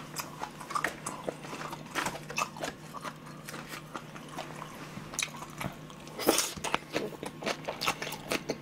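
Close-miked chewing and biting of food, with irregular wet mouth clicks and smacks that grow denser and louder about six seconds in, over a faint steady hum.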